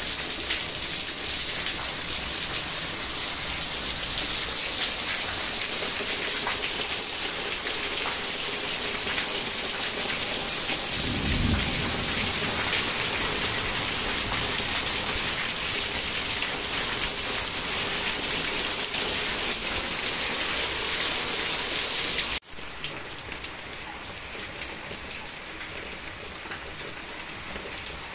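Steady rain falling and pattering on roofs and walls, with a brief low rumble about a third of the way in. About two-thirds of the way through the sound drops abruptly and the rain carries on quieter.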